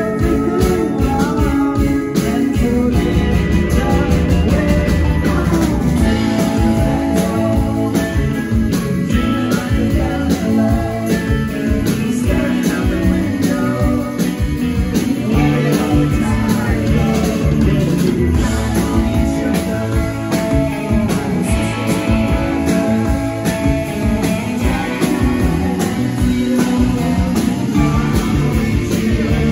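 Live rock band playing loudly: electric guitar, bass guitar and keyboard over a steady beat.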